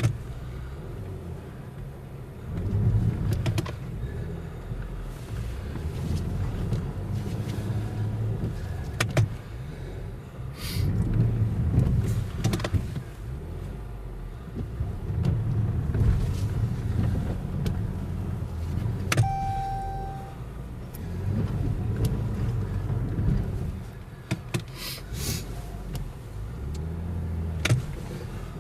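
Car engine revving in repeated surges as it works to drive through deep, unplowed snow. There is a short single beep about two-thirds of the way through.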